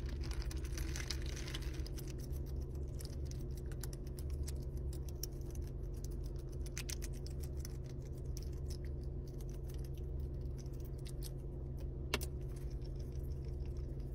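A domestic duck's bill crunching and clicking on ice cubes in a plastic cup: a long run of small, irregular sharp clicks, with one louder click near the end. Under it is a steady low hum inside the car.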